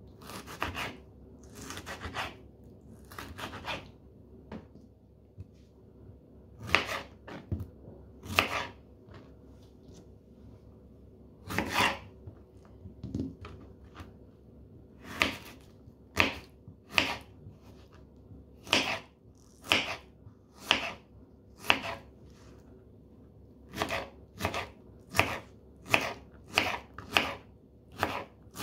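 Kitchen knife chopping a tomato and then a cucumber into cubes on a plastic cutting board: separate blade strokes knocking on the board, one at a time with pauses, coming about once a second toward the end.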